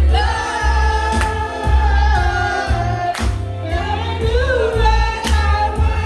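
Music with singing: a held vocal line over a pulsing bass beat.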